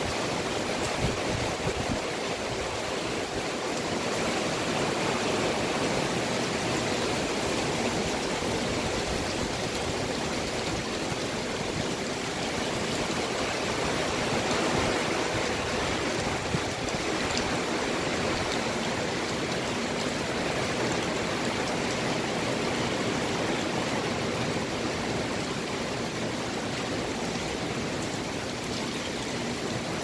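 Loud, heavy rain pouring down and streaming off the edge of a canopy roof: a steady, dense rushing hiss with scattered drips and spatters.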